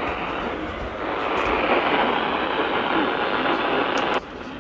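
Steady static hiss from a weather radio receiver, dropping sharply in level about four seconds in.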